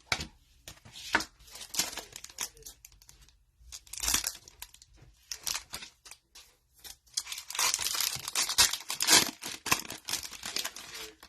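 Foil wrappers of football card packs being torn open and crinkled in irregular bursts, the longest and loudest stretch of tearing and crinkling coming in the last few seconds.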